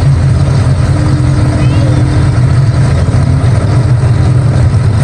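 Miniature ride-on train running steadily along its track, a loud, even, deep rumble with a faint steady hum above it.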